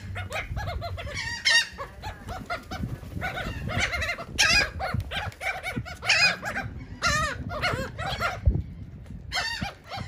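A flock of laughing gulls calling over and over, short overlapping squawks and cackling calls, with a brief lull near the end.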